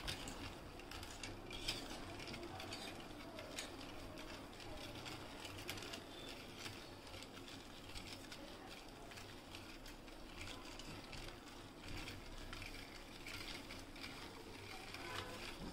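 Wire whisk stirring milk and jaggery in a metal bowl: faint, quick, irregular clicking and scraping of the wires against the bowl.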